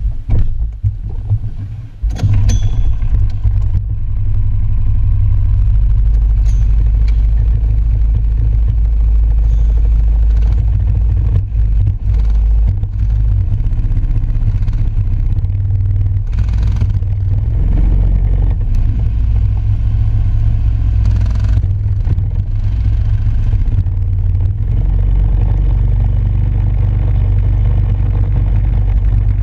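Go-kart engine running, picked up by a camera mounted on the kart as a loud, steady low rumble. It comes in sharply about two seconds in, after a few knocks, as the kart gets going.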